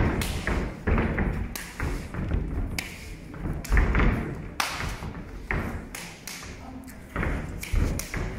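Boxing gloves smacking into a trainer's hand pads during pad work: a string of sharp punches at an uneven pace, some landing singly and some in quick two- and three-punch combinations.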